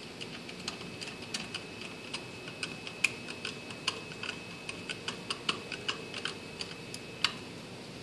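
Flat-blade screwdriver tightening a lug screw in an electric meter socket: a run of irregular light clicks, two or three a second, as the blade works in the screw, stopping a little before the end.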